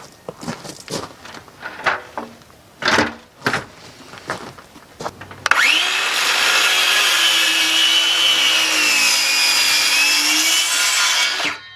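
A few scattered knocks, then about halfway through an electric power saw starts and cuts through a wooden board for about six seconds, its motor pitch sagging slightly during the cut, and stops sharply just before the end.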